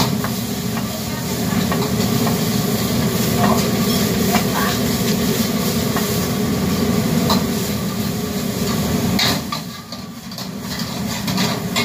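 Gas wok burner running with a steady low rumble under food sizzling in the wok, while a metal ladle scrapes and clanks against the wok a few times. Near the end the sizzle dips briefly as the food is tossed.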